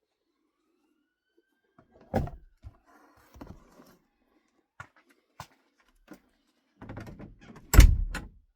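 Shoes and shoe box being handled: a knock about two seconds in, some rustling, a few light clicks, then the loudest thump near the end.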